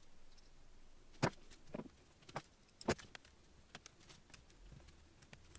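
A few sparse, light clicks and taps, the two clearest about a second and three seconds in: hands handling a digital caliper and working a laptop keyboard.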